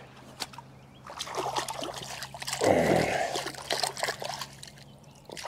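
Shallow river water splashing and trickling as a large carp is released by hand, with the biggest splash about two and a half seconds in.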